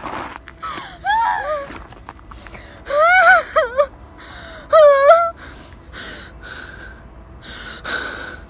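A young woman crying in fear: three loud, wavering, high-pitched sobbing wails, then quieter gasping breaths near the end.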